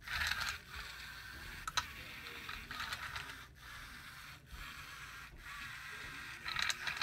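Small hobby robot's DC gear motors whirring as it drives and turns on carpet, starting abruptly, cutting out briefly three times and picking up again, with a sharp click about two seconds in.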